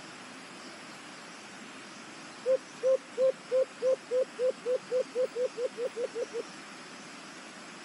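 A white-eared brown dove (alimokon) calling: a series of about fourteen coos, the first loud, then coming faster, shorter and fainter over about four seconds, over a steady background hiss.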